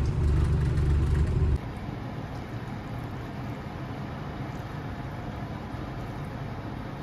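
Low rumble from inside a moving road vehicle, cut off abruptly about a second and a half in; then a steady, even hiss.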